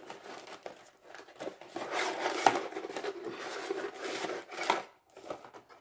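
A cardboard box of dry lasagna sheets being handled and the stiff sheets pulled out, rustling and scraping for a few seconds with one sharp click about halfway through.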